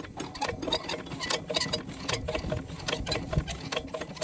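Stationary diesel water-pump engine ticking and clicking in a quick, even rhythm, about four or five clicks a second, as it is being worked for starting.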